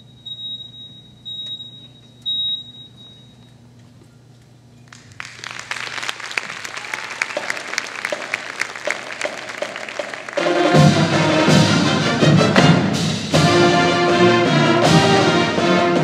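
High school marching band. A high electronic beep pulses about twice a second for the first few seconds. The band starts playing quietly about five seconds in, and the full brass section comes in loud about ten seconds in.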